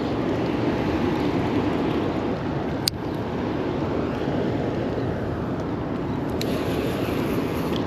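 Steady rushing noise of wind and moving water, with a single sharp click about three seconds in and a fainter one later.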